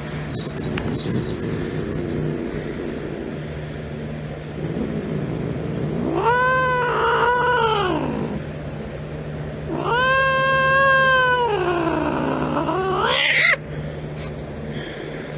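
Domestic cat yowling: two long, drawn-out calls. The first rises and falls in pitch; the second is longer, sinks low, then climbs again before cutting off suddenly.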